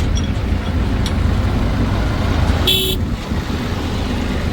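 Diesel engine of heavy farm or earth-moving machinery running steadily, a loud low rumble, with a short shrill sound a little before three seconds in.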